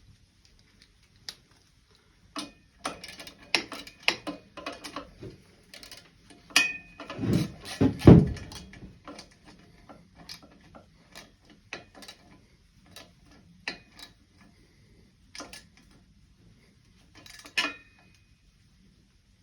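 Hand tools clicking and clinking on metal as the exhaust pipe's mounting bolt is threaded in and tightened on a Kawasaki KX100 dirt bike. Irregular sharp clicks, a couple with a short metallic ring, and a heavier clunk and rattle about seven seconds in.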